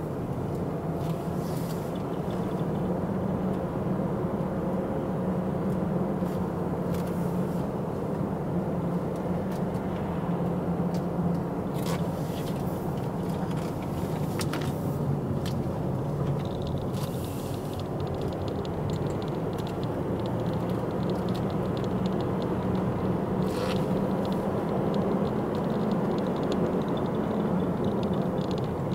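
Car heard from inside the cabin while driving slowly: a steady engine hum with road and tyre noise, and a few brief clicks and knocks from the car over the bumpy road.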